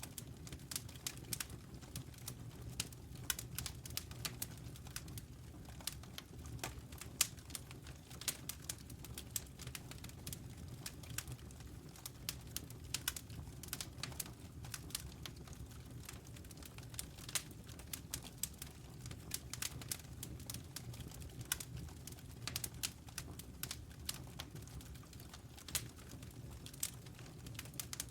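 Campfire crackling, with irregular sharp pops over a steady low rumble.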